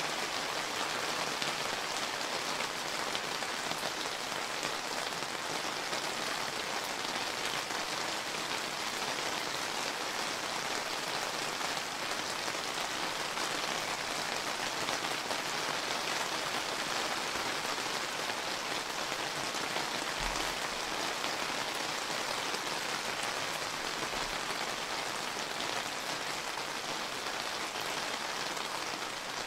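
Steady summer rain falling and pattering on surfaces, an even hiss of dense drops. Two faint low thumps come about two thirds of the way in.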